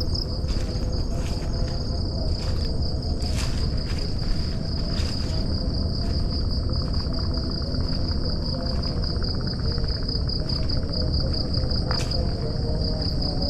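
Forest insects trilling steadily, a continuous high, rapidly pulsing note, over a low rumble from the moving handheld camera, with a few soft knocks of footsteps on the dirt path.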